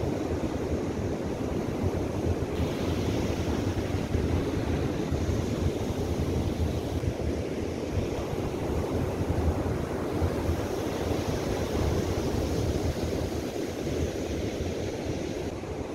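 Ocean surf breaking on a sandy beach, a steady wash of noise, with wind rumbling on the microphone.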